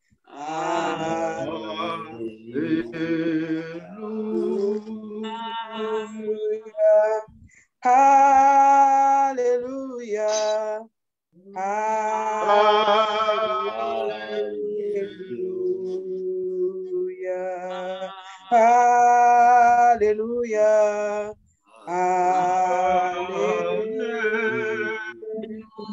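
A woman singing a worship song without instruments over a video call, in long held notes with short breaks between phrases.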